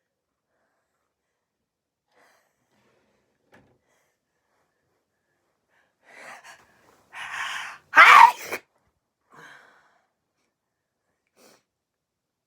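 A person with a cold sneezing once. Sharp in-breaths build up over about a second and a half, then one loud sneeze comes about eight seconds in, followed by a brief quieter breath.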